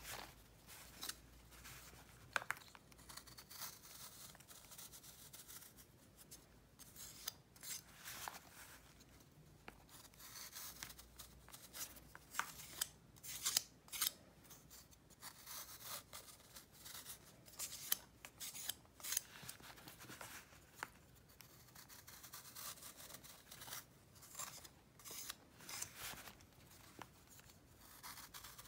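A knife blade shaving a pressed block of crunchy powder: a run of short, crisp scraping strokes at an uneven pace, with flakes breaking off. A few strokes stand out louder than the rest.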